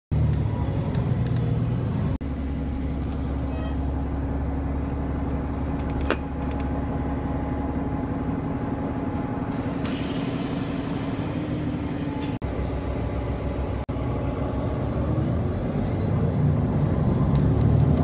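Steady low engine rumble, broken by a few abrupt cuts and growing louder near the end.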